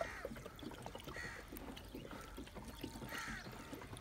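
Crows cawing a few times in the background, short harsh calls spaced a second or two apart.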